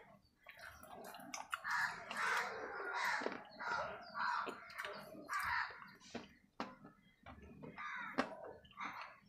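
Close-miked chewing of a water-soaked bar, crunching in short bursts about twice a second.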